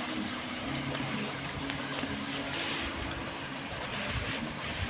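An engine running steadily at a distance, a low even hum, with faint rustles and clinks as a cast net and its chain are handled.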